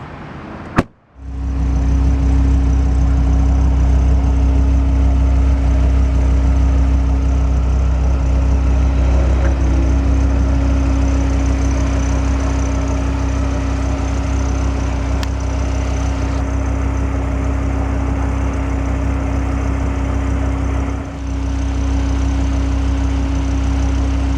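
Dodge Viper RT/10's 8.0-litre V10 idling steadily with a deep, even drone, after a sharp click about a second in; the sound dips briefly near the end.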